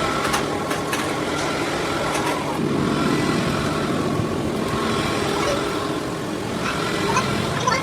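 Steady mechanical running, engine-like, with a few sharp metallic clicks scattered through it.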